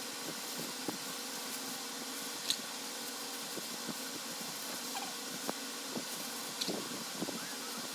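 Steady background hum and hiss, with scattered light clicks and one sharper click about two and a half seconds in.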